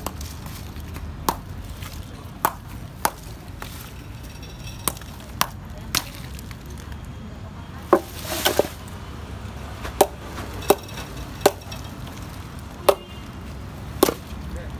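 A hammer striking a large block of ice: about a dozen sharp chopping blows at uneven intervals as chunks are split off, with one longer, noisier burst about halfway through.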